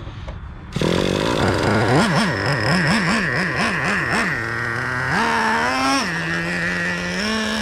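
Traxxas Revo 3.3's small two-stroke nitro engine starting up about a second in, then revved up and down quickly about five times before settling to a steadier fast idle with a couple of short rises in pitch. It is restarting during break-in after an unexplained stall.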